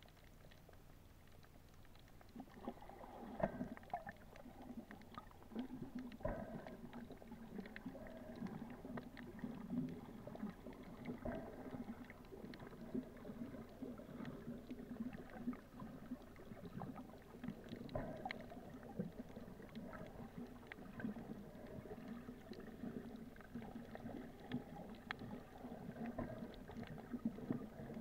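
Muffled underwater sound as heard by a submerged camera: a low, steady rumble of moving water with scattered small clicks and knocks. It grows a little louder a few seconds in.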